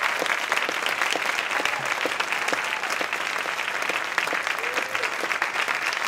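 Theatre audience applauding steadily, a dense patter of many hands clapping, with a few voices calling out over it.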